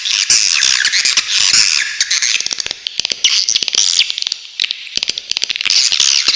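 Swiftlets twittering: a stream of high, sharp chirps broken twice by rapid rattling clicks, about two seconds in and again about five seconds in.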